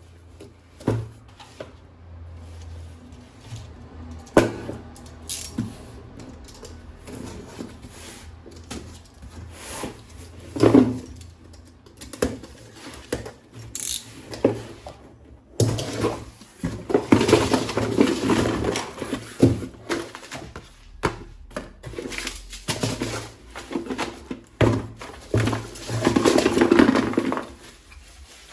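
Hands handling a plastic toy gun and its packaging: scattered plastic clicks and knocks, with louder rustling stretches twice, about halfway through and near the end.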